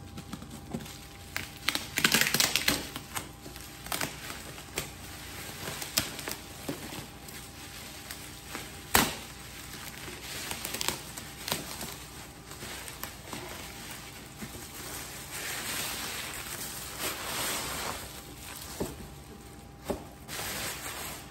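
Bubble wrap being handled and pulled off a box: plastic rustling and crinkling with scattered sharp clicks and taps, a loud one about nine seconds in.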